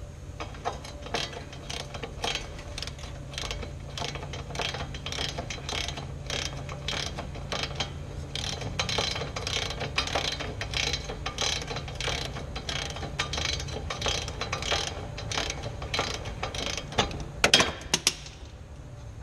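Hand ratchet wrench clicking rapidly as it backs the castle nut off the upper ball joint stud of the front suspension. A few sharper, louder metallic clicks come near the end.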